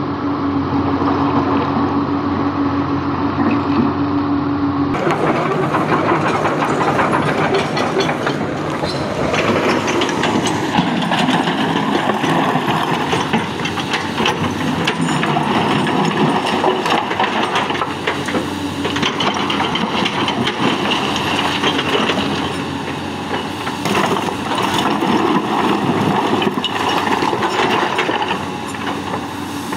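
Komatsu PC200 hydraulic excavator's diesel engine running under load as the bucket digs and moves broken rock in shallow water, with frequent knocks and clatter of stones. About five seconds in, a steady hum gives way abruptly to a rougher, noisier engine sound.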